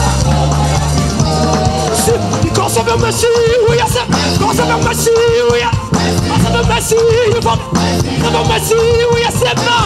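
Live praise-band music: a lead singer's voice, wavering in pitch, with backing singers over a steady bass line and drums.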